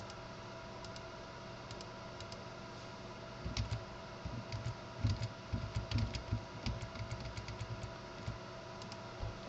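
Computer keyboard keys tapped in a quick irregular run from about a third of the way in until near the end, with a few scattered single clicks before it.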